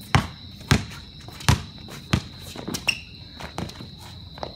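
A basketball dribbled on a concrete driveway: four hard bounces about two-thirds of a second apart, then lighter, quicker knocks as the play moves toward a shot.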